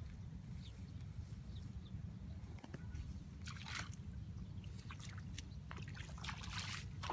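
Water splashing and dripping in short, irregular bursts, stronger about halfway and near the end, over a steady low rumble.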